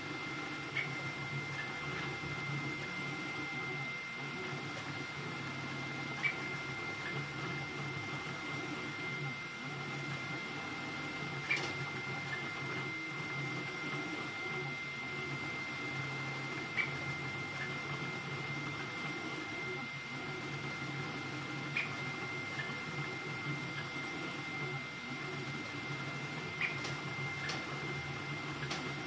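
Ender-3 V3 3D printer running a high-speed print: a steady high whine over a low hum, with a short tick about every five seconds.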